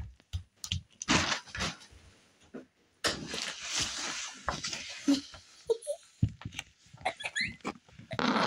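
Phone handling noise: the microphone rubbing and knocking against fleece pajamas in a run of short knocks and a rustling hiss, with a child laughing near the end.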